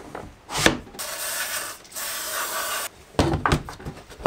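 Aerosol can of silicone spray hissing in two short bursts over about two seconds, lubricating a plastic KG drain-pipe joint so the pipe slides into its fitting. A sharp click comes just before the spray, and a few knocks of the plastic pipe follow near the end.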